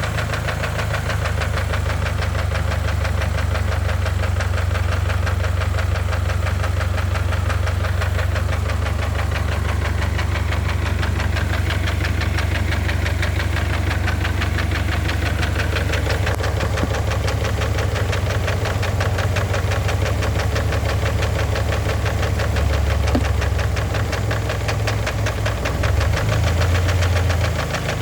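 Warm engine running with a steady, rapid knocking; the knock comes on once the engine is up to temperature, and the owner says thick oil had been masking it.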